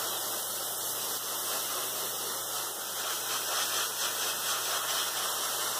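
Airbrush spraying paint onto a model figure: a steady, even hiss of air.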